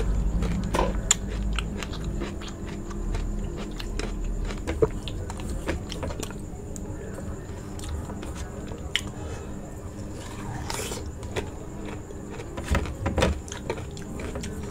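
Close-miked biting and chewing of raw aloe vera: many short, wet clicks and smacks, with a brief hiss about eleven seconds in and a cluster of louder clicks near the end.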